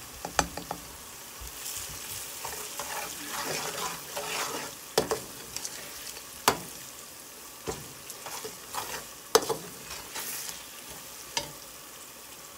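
Whole and ground spices frying and sizzling in hot oil as they go into the tempering, stirred with a metal slotted spoon that clinks and scrapes sharply against the pan at irregular intervals.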